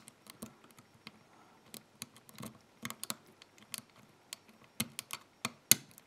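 Metal lock pick clicking and ticking against the pins inside a DOM dimple lock cylinder held under tension: a run of faint, irregular clicks with a sharper one near the end. The plug gives a bit of counter-rotation, typical of a spool pin being worked.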